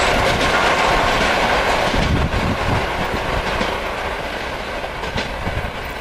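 ER2T DC electric multiple unit running away along the track, its wheels clattering on the rails, the running noise slowly fading as it recedes.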